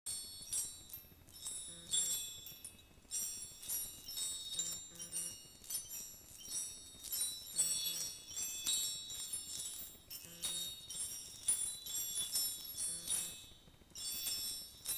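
Small spherical metal fairy bell tinkling: bright, high chiming notes struck in irregular clusters, ringing on and overlapping one another.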